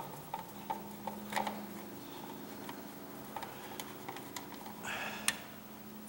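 Scattered small clicks and ticks as the mounting screws of a 3-way wall light switch are unscrewed and the switch is handled in its metal box, with one sharper click near the end.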